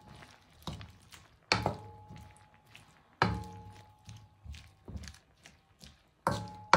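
Wooden spatula knocking against a non-stick wok while stirring, a handful of irregular knocks, the louder ones followed by a brief metallic ring from the pan.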